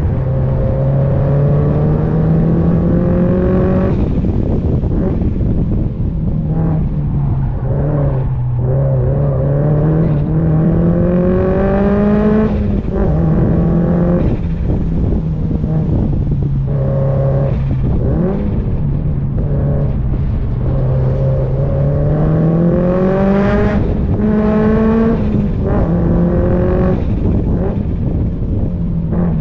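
Performance car's exhaust under hard driving: the engine note climbs steadily as it accelerates, then falls back, again and again, over constant wind and road rumble.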